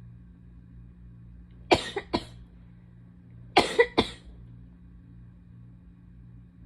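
A person with a cold giving two quick fits of sharp, explosive expulsions of breath: two bursts just under two seconds in, then three more about a second and a half later.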